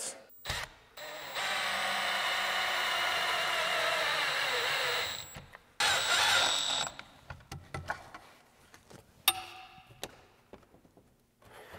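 Cordless drill running steadily for about four seconds, its pitch dropping near the end, then a shorter second run while it fastens a wooden handrail at a pocket-hole (Kreg jig) joint. A single light knock follows near the end.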